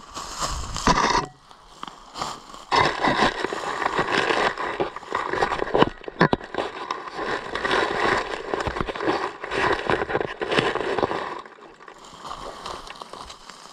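Rustling and crackling of dry leaves and twigs underfoot and camera-handling noise as the camera is carried and set down on the forest floor. The dense crackling thins out about eleven seconds in.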